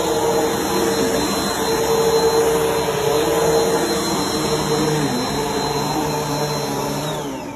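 Bissell PowerForce Helix Turbo upright vacuum cleaner running steadily on carpet. Near the end it is switched off and its motor whine falls as it spins down.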